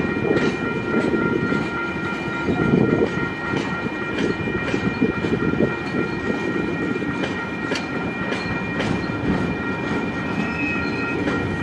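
Tasrail freight train's wagons rolling past, a steady low rumble with irregular clicks from the wheels about every half second. A steady high-pitched ringing tone sounds over it throughout.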